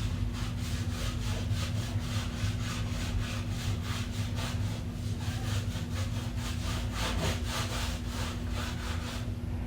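Rhythmic back-and-forth rubbing strokes, about three to four a second, stopping shortly before the end, over a steady low hum.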